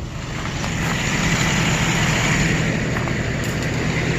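Ford Ranger pickup's engine running steadily, getting slightly louder over the first second or so.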